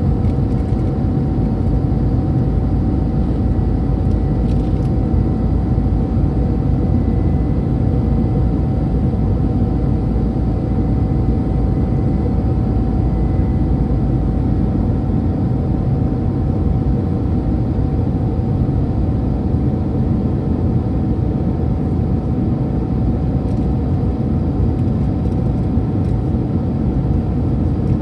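Airbus A319-100 cabin noise heard from a window seat beside the wing on descent: a steady rush of engine and airflow noise with a constant mid-pitched whine running through it.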